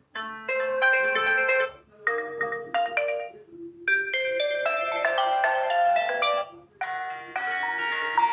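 Built-in ringtones of a Realme U1 smartphone previewed one after another: about five short melodic tunes, each cut off abruptly after a second or two when the next one is tapped.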